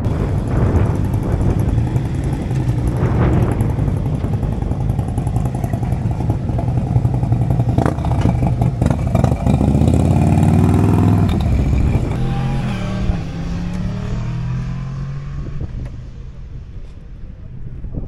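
Motorcycle engines running, with one revving up in pitch about ten seconds in and then falling away as it fades.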